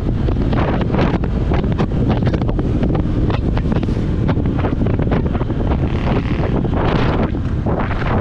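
Wind buffeting the microphone of a camera riding on a moving Honda ADV 150 scooter: a loud, steady rush with constant gusty flutter.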